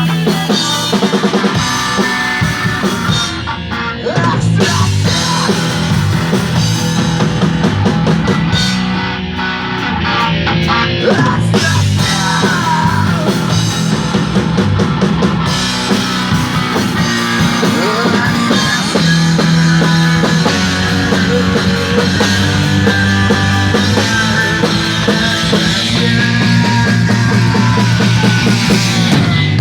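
Rock band playing a song, with electric guitar and drum kit.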